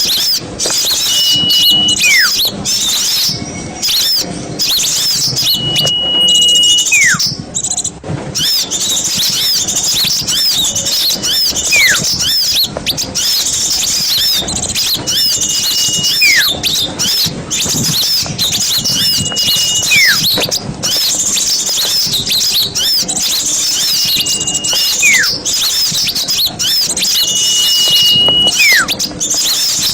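Bird-lure recording of a dense chorus of many small songbirds chirping and chattering. Every four or five seconds a held high whistle is followed by a falling whistle.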